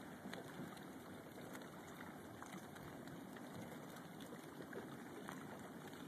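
Faint, steady lapping of calm sea water with many small splashes and ticks at the surface, over a low rumble.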